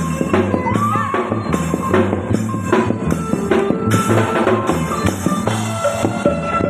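Isan folk music: a phin lute played over a drum kit with a steady beat.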